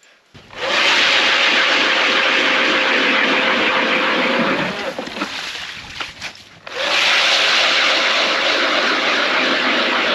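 Power ice auger boring through lake ice, its motor holding one steady pitch under the grinding of the blades. It runs for about four seconds, stops briefly with a few knocks, then starts again.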